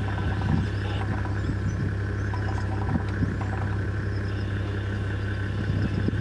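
A vehicle engine idling, a steady low hum, with a couple of faint soft knocks over it.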